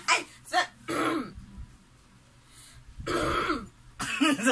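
A person making short throaty noises like throat clearing, in several quick bursts, then a pause of about two seconds before two more bursts near the end.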